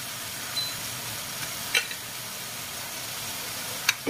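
Boiled pork and chicken pieces sizzling in hot oil in a wok: a steady hiss, with two short clicks, one about two seconds in and one near the end.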